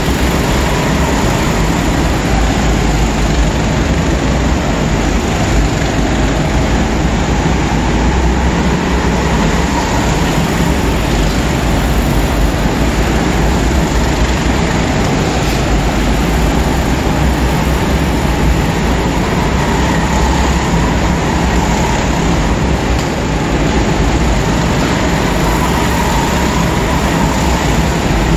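Several go-karts running laps together in a large indoor hall, making a continuous engine drone with a faint pitch that rises and falls.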